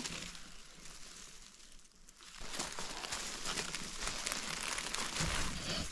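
Crackling, crinkling rustle of forest-floor litter, leaves and twigs being disturbed close to the microphone, growing busier from about two seconds in.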